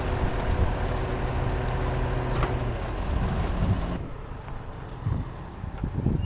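A motor vehicle's engine running steadily, which drops away about four seconds in to a quieter low rumbling.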